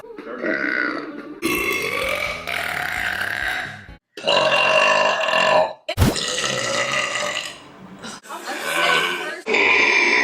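Women's long, loud burps, several in a row, each cut off abruptly by the next.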